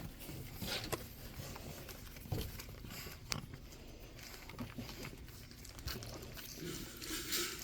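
Pug puppies moving about their pen: light pattering and scattered small clicks and rustles.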